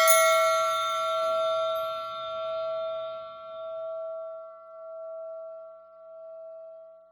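A magical Christmas chime ringing out after being struck, its bell-like tone slowly fading with a wavering pulse about every second and a quarter. A bright high shimmer dies away within the first few seconds.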